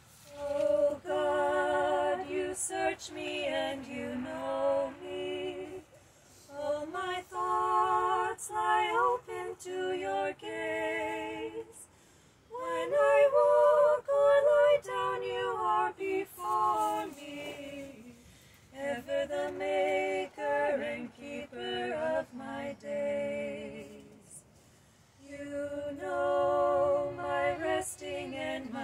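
Two women singing a cappella in two-part harmony, one voice above the other, in phrases of about five seconds with short breaks between them.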